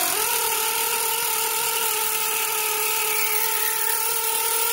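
Harbor Freight EarthQuake 3/8-inch impacting air ratchet running at full speed on air: a steady high whine with the hiss of exhaust air. It picks up speed just after the start, then holds steady without impacting.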